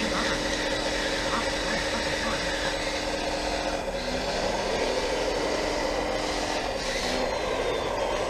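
Radio-controlled 1/14-scale hydraulic bulldozer and loader running: a steady mechanical whine with several held tones that shift in pitch about four seconds in and again near seven seconds.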